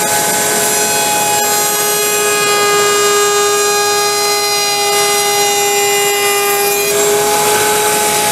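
Table-mounted wood router running at full speed with a steady high whine while the edges of a small cedar box are fed past the bit. Its tone changes slightly about a second in and again near the end.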